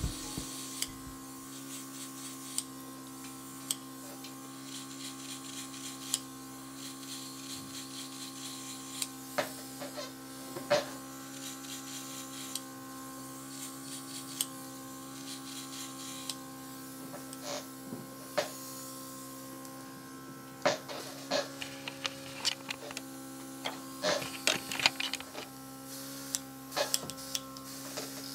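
Airbrush makeup compressor running with a steady hum, with stretches of hiss as the airbrush sprays makeup. Scattered light clicks and taps come from handling the airbrush, more often near the end.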